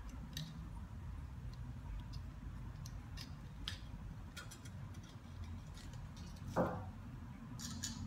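Faint, small clicks and ticks of thin frame wire being fed back through a drilled hole in a wooden beehive frame and handled with the fingers, over a low steady room hum.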